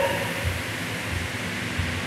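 Air-resistance rowing machine's fan flywheel whirring steadily under a man rowing.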